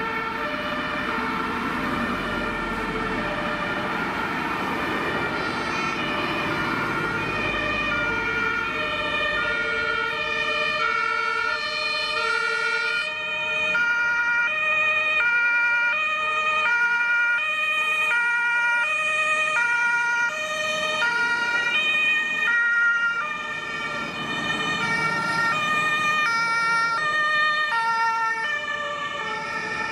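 Several German emergency-vehicle two-tone sirens (Martinshorn), each alternating between a high and a low tone, overlapping out of step with one another as a convoy of fire engines and rescue vehicles drives past. Engine and tyre noise from the passing vehicles is heard under the sirens and is strongest over the first several seconds.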